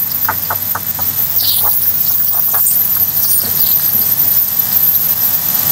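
Beef, garlic and seasonings frying in hot oil in a pan, sizzling steadily. A utensil knocks and scrapes against the pan several times in the first three seconds.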